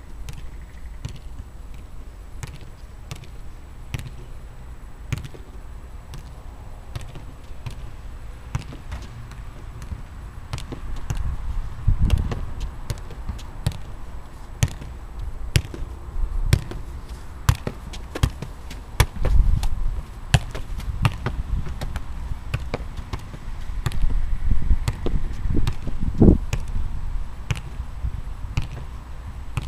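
Football being juggled: a run of sharp, irregular taps, one or two a second, as foot and knee strike the ball.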